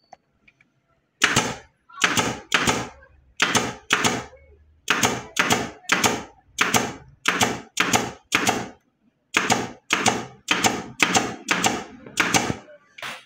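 Pneumatic upholstery staple gun firing staples through fabric into a wooden chair seat: about twenty sharp shots at roughly two a second, with a brief pause about two-thirds of the way through.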